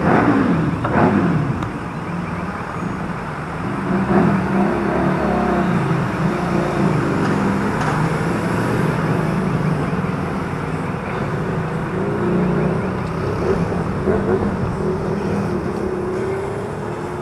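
Road traffic: a motor vehicle passes close right at the start, its pitch falling as it goes by, followed by the steady sound of vehicle engines running.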